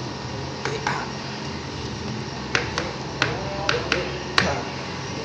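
Light metallic clinks and taps, about eight of them at irregular spacing, as parts are handled against a bare car engine block during reassembly. Some ring briefly. A steady hum runs underneath.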